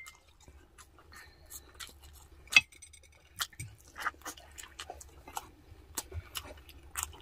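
Close-up mouth sounds of a man eating braised pork spareribs: irregular wet clicks and smacks of chewing and biting meat. There is one sharp, ringing clink against the plate about two and a half seconds in.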